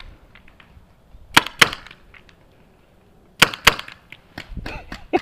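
Paintball pistol shots: two quick pairs of sharp pops about two seconds apart, with fainter pops scattered between them.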